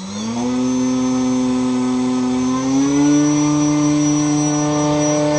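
Small brushless outrunner electric motor spinning a propeller under load, being run up by its speed controller. Its whine climbs and steps up in pitch twice, in the first half-second and about three seconds in, then holds steady with the propeller's rush of air, over a thin high whistle.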